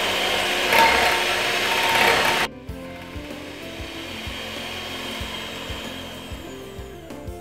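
Philips electric hand mixer whisking eggs in a glass measuring jug, its motor and beaters running loud and steady. About two and a half seconds in the sound drops suddenly to a much quieter level.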